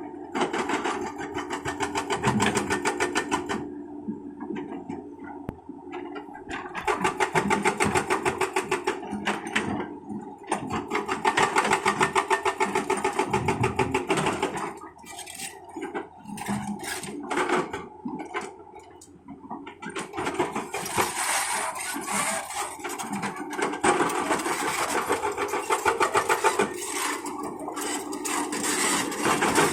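Excavator-mounted hydraulic breaker hammering in bursts of rapid, evenly spaced blows, with short pauses between runs, over the steady running of the excavator's diesel engine.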